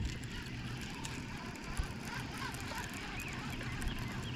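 Quiet pond ambience: a steady low hum under a few faint, short bird chirps.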